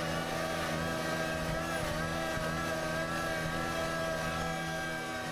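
Compact tractor's diesel engine running steadily under load while pulling a disc harrow, with a whine above it that wavers slightly in pitch.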